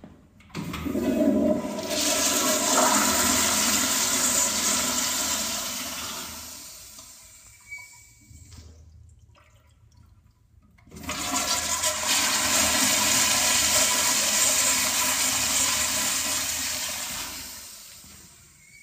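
Toilet flushing twice, one flush after another: each starts with a sudden loud rush of water that holds for about four seconds and then tails off as the bowl refills, with a few seconds of quiet between the two.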